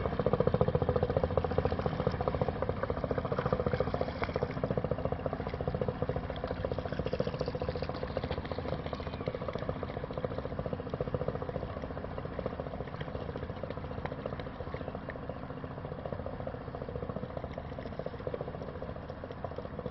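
Plymouth Pilot 16 open boat's inboard engine running with a fast, steady beat as the boat motors along, slowly fading as it moves away.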